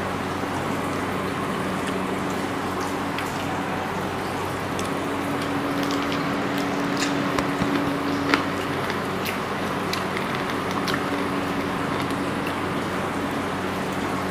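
Eating by hand: fingers mixing and squishing rice and curry on plates, with chewing and scattered small clicks from fingers and rings on the plates, one sharper click about eight seconds in. A steady background hum runs underneath.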